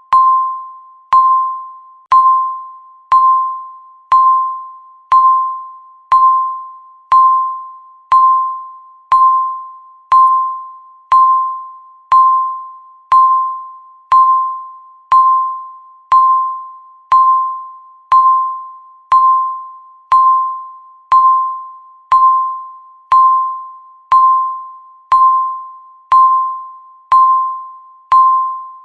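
Countdown timer beeping once a second, marking each second left. Each beep is the same single mid-pitched electronic tone that starts sharply and fades away before the next.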